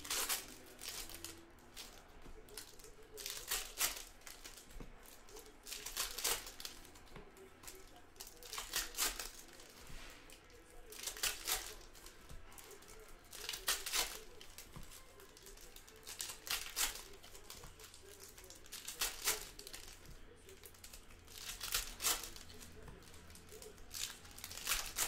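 Panini Hoops basketball cards and their pack wrappers being handled, rustling and crinkling. A sharp swish comes about every two and a half seconds.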